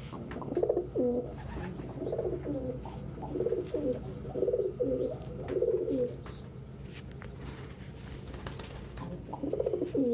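Domestic pigeons cooing: a run of repeated coos, a lull after about six seconds, then more coos near the end.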